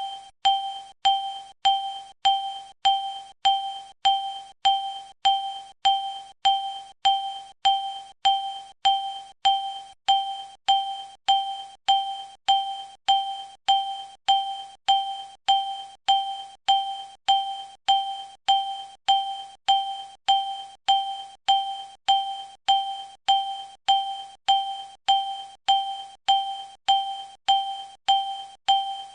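The bell chime of an LA Metro TAP fare vending machine made by Cubic, one short ding repeated at an even pace of about three every two seconds. Each ding fades quickly before the next.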